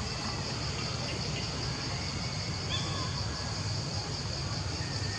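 Outdoor ambience: a steady high insect drone over a low rumble, with a few faint short chirps.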